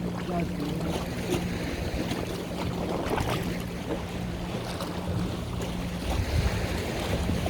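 A boat's engine running with a steady hum, under water wash and wind buffeting the microphone.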